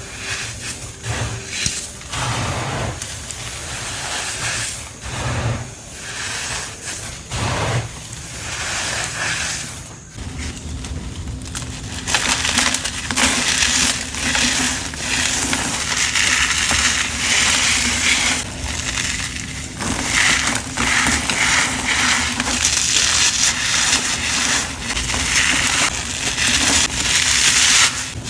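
Packed powder being crushed, a crisp crunching: a few separate crunches in the first several seconds, then dense, continuous crunching from about ten seconds in.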